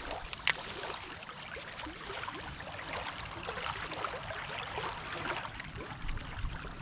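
Small waves lapping and splashing at the shoreline of a reservoir, with wind rumbling on the microphone. A single sharp click sounds about half a second in.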